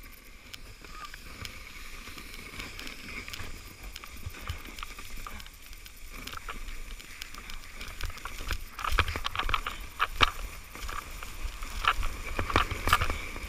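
Plastic sled sliding fast over snow: a steady scraping hiss, with a run of sharp knocks and low thumps from about nine seconds in as it bumps over rough snow.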